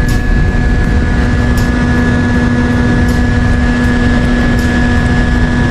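Steady motor hum holding one constant pitch over a heavy low rumble, as picked up by an action camera's microphone while moving; there are no changes and no speech.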